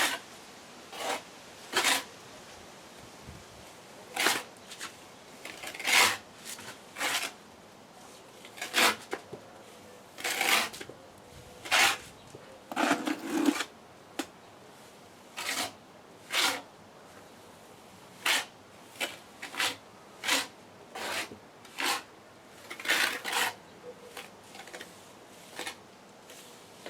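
A trowel scraping and spreading heat-resistant tile adhesive over the firebox surface, in short irregular strokes about once a second.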